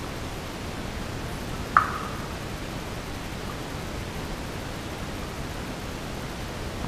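A steady, even hiss of noise, with a single water drop plinking into a cave pool a little under two seconds in, a short ringing note that dies away quickly.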